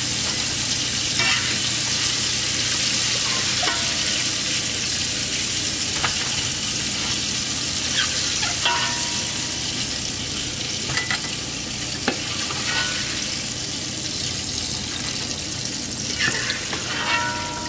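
Cornstarch-battered pork spare ribs deep-frying in hot canola oil: a steady sizzling hiss. Every second or few, a short metal clink from the skimmer tapping the pot or the wire rack, a couple of them ringing briefly.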